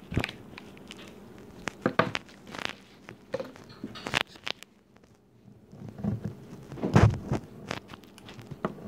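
Irregular handling noises close to the microphone: soft taps, clicks and knocks from hands working purple slime and a plastic pen, with two louder thumps, one about two seconds in and one about seven seconds in.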